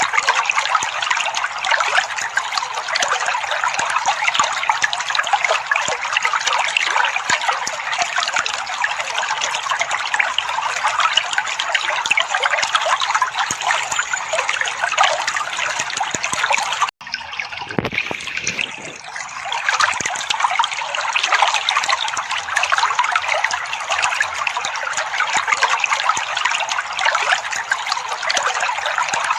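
Water trickling steadily. About seventeen seconds in it cuts off abruptly for a moment, then comes back weaker and builds back to full over a couple of seconds.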